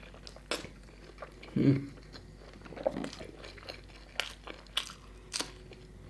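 Close-miked chewing of puri and curry, moist and soft, with a short low hummed vocal sound about a second and a half in. From about four seconds in, three crisp crunching bites into a raw green chilli.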